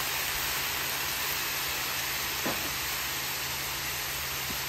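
Soy sauce, garlic and ginger sizzling in sesame oil on a hot Blackstone flat-top griddle around a cabbage stir-fry, a steady hiss.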